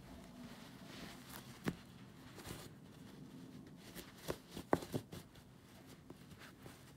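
Soft, scattered ticks and rustles of a steel needle and wool yarn being pushed and pulled through a hand-knotted rug's pile during reweaving, most of them clustered about four to five seconds in, over a faint low hum.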